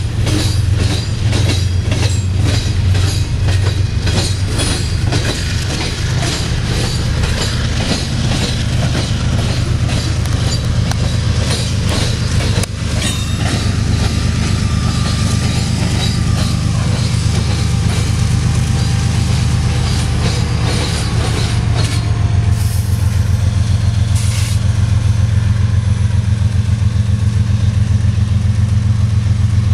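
Loaded freight cars of a Union Pacific gravel train rolling past, steel wheels clicking in a quick, even rhythm over the track joints above a heavy low rumble. Near the end the clicking fades and a steady, pulsing low drone takes over.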